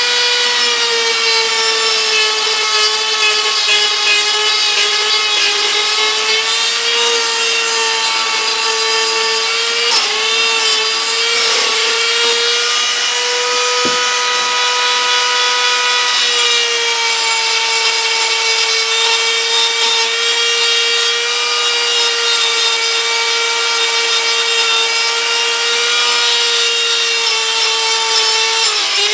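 High-speed rotary tool with a small abrasive bit grinding flashing out of the aluminium intake port of a McCulloch Timber Bear chainsaw cylinder. It gives a steady high whine whose pitch dips a little a few times, around ten seconds in and again at the end.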